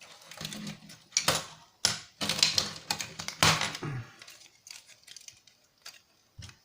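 Irregular sharp clicks and clacks of hard plastic parts and metal pliers as stuck rotors are worked off a small quadcopter's motor shafts. They come thickest in the first four seconds and thin out after.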